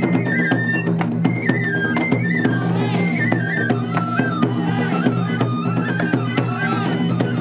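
Japanese shishimai lion-dance festival music: a bamboo transverse flute plays a stepping melody over frequent drum strikes.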